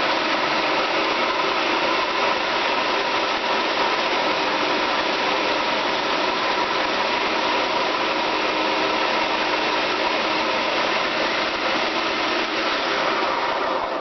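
Food processor motor running steadily, blending ground pistachios and cashews with coconut oil, honey and cacao powder into a thick dough that is starting to form a ball. The motor is switched off at the very end.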